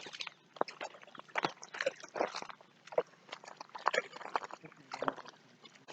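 Repeated short animal calls from a group of animals, irregular and overlapping at about two a second.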